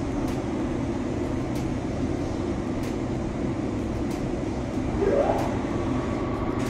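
Steady noise of a body-shop paint booth's ventilation running, with the hiss of a compressed-air paint spray gun laying on paint. A brief rising squeak about five seconds in.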